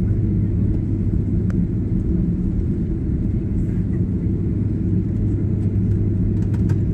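Steady low rumble inside a jet airliner's cabin as it rolls along the runway just after landing, the engines and the wheels on the pavement making one even drone.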